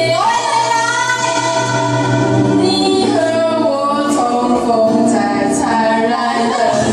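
A group of young women singing together into microphones, holding a long note through the first couple of seconds before moving on through the melody.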